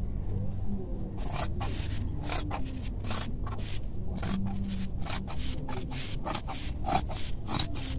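Large scissors snipping through blouse cloth: a quick, uneven run of sharp snips, about two or three a second, starting about a second in.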